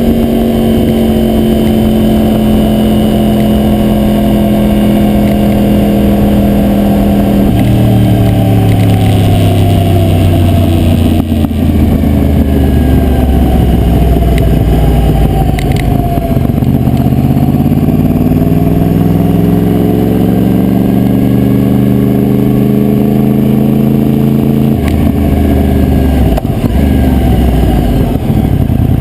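2009 Yamaha YZF-R1's crossplane inline-four engine heard from a camera mounted on the bike: the revs fall, drop sharply about a quarter of the way in, then climb again from about halfway and break off with a gear change near the end. The camera's adhesive mount rattles over the engine sound.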